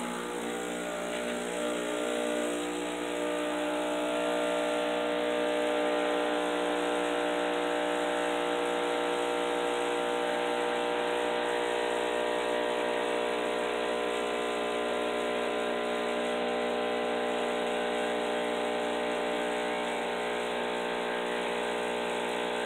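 Breville Barista espresso machine's vibratory pump humming steadily as it pushes descaling solution through the group head on a 1-cup shot cycle.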